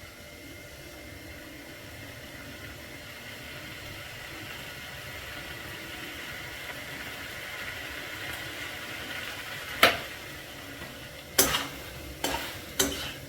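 Chicken frying in a pan with very little oil, a steady sizzle that grows slightly louder. About ten seconds in comes a sharp clack, then a few quicker knocks near the end, like a utensil striking the pan.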